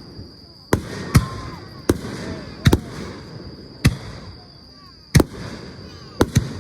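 Fireworks display: aerial shells bursting in a run of about eight sharp bangs at uneven intervals, two of them close together near the end, each trailing off.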